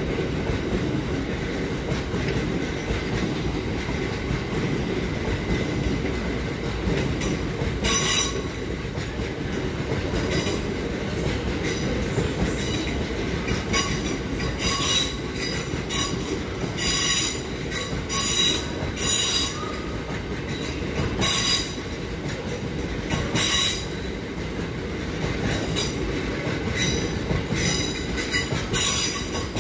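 Freight train of bogie hopper wagons rolling through the station, wheels rumbling steadily on the rails. From about eight seconds in, the wheels give repeated short, high-pitched squeals.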